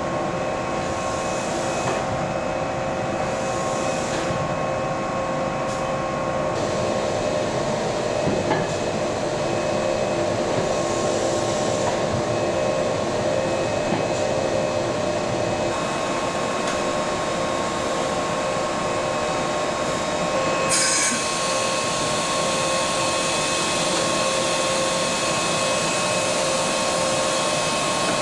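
Steady hum of battery-cell production machinery, a constant noise with several steady tones in it. About three-quarters of the way through, the sound shifts and a brighter hiss comes in.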